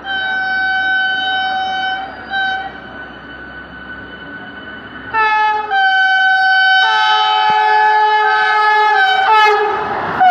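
Vande Bharat Express electric train set sounding its horn as it approaches at speed: a two-second blast, a short toot, then a longer blast starting about five seconds in, with a second, lower tone joining partway through. The rushing noise of the train swells near the end as it reaches the platform.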